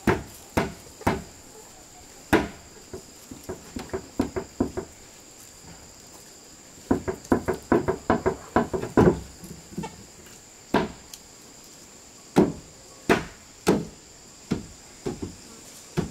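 Irregular sharp wooden knocks from a tool striking wood, with a quick run of lighter taps in the middle. A steady high insect drone carries on underneath.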